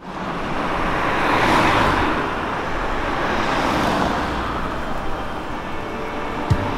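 Street traffic: cars driving past, the tyre and engine noise swelling as one goes by about a second and a half in and again as another passes close around four seconds in. A low beat of music starts just before the end.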